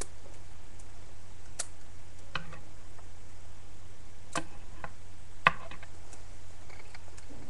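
K'nex plastic rods and connectors clicking as they are snapped together while a toy crossbow is reassembled: a handful of separate sharp clicks, the loudest about five and a half seconds in.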